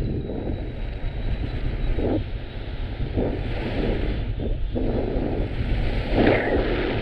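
Strong wind buffeting the microphone: a constant low rumble, with louder gusts surging at irregular intervals of about a second.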